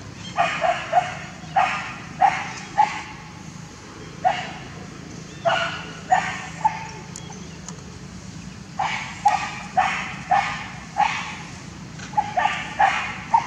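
Dog barking in short, sharp, fairly high-pitched barks, coming in quick runs of two or three over and over.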